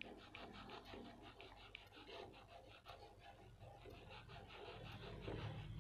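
Faint, quick scraping of a spatula stirring sugar syrup and condensed milk in a non-stick frying pan, several strokes a second.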